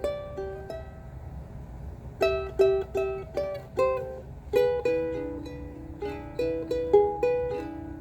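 Donner Zebrawood soprano ukulele played note by note in a short melodic phrase. A few notes come first, then a pause of about a second, then a longer run of picked notes whose last note rings out.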